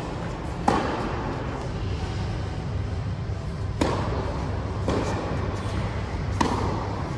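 Tennis rally in an indoor hall: sharp pops of a racket striking the ball, the clearest about a second in, then near four seconds and near six and a half seconds, with a fainter knock between them, over a steady low hum of the hall.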